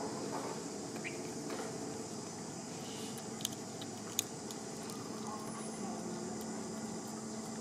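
Steady high insect drone over low outdoor background noise, with two sharp clicks a little past the middle.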